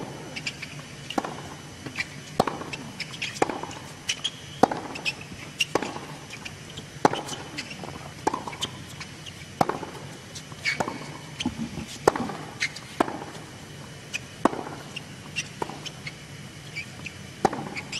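Tennis rally: a ball struck back and forth by rackets from the baseline, each hit a sharp pop about once a second, with fainter bounces on the hard court in between.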